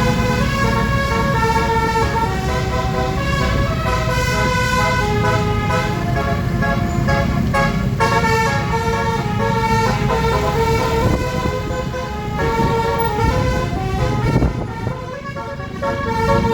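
Multi-tone 'telolet' bus horn playing a tune, its notes stepping from pitch to pitch over the low rumble of the running vehicle. The horn drops briefly near the end.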